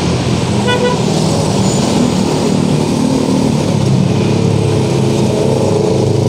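Busy city street traffic: small motorcycles and scooters passing close by with their engines running, and a short horn toot about a second in.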